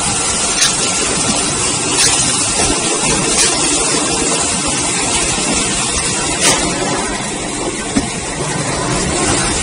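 Automatic toilet paper roll band saw cutting machine running: a loud, steady mechanical noise with a few sharp clicks at irregular intervals.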